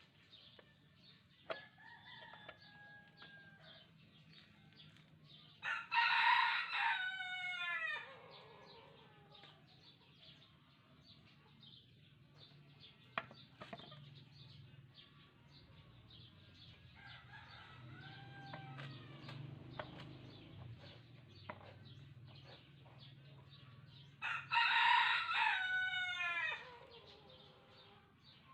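A rooster crowing twice, each crow about two seconds long and falling at the end, with softer chicken calls in between. Faint scattered clicks and a low steady hum run underneath.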